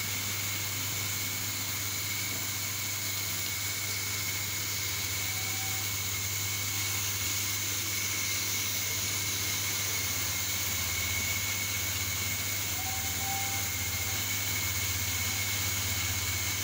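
Spray-booth ventilation fans running: a steady low hum under an even hiss, with a thin high whine over it.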